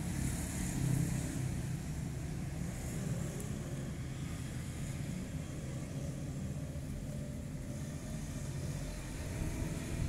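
Wind buffeting the microphone: a steady, uneven low rumble.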